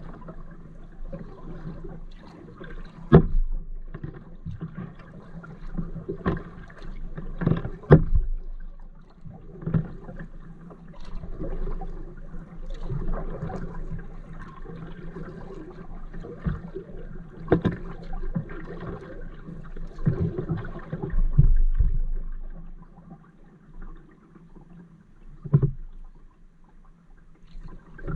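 Kayak being paddled: water splashing and swishing with each stroke, with a few sharp knocks along the way.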